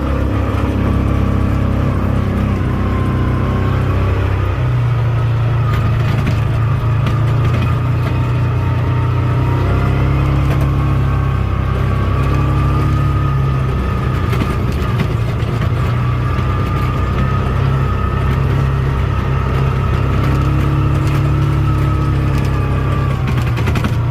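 Vehicle engine running steadily while driving, with a thin whine that wavers slightly in pitch above a steady low hum.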